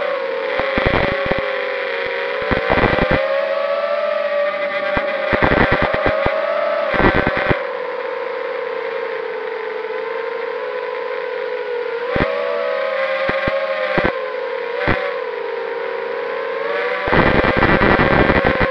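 ZMR250 racing quadcopter's motors and DAL 5045 three-blade propellers, heard from a camera on board: a steady whine whose pitch rises and falls with the throttle. Short bursts of rushing noise break in several times, longest and loudest near the end.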